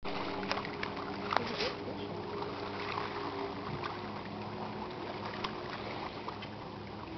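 A motorboat engine running at a steady pitch, with a few sharp clicks over it.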